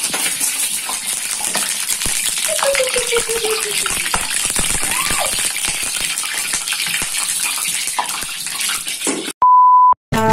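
Hot cooking oil sizzling and crackling in a wok, a steady hiss with many small pops. Near the end a single steady electronic beep sounds for about half a second.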